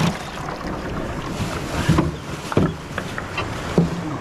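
Ice and fish being handled in a fish cooler: a few sharp knocks and clatters in the second half, over a steady rushing background of wind on the microphone.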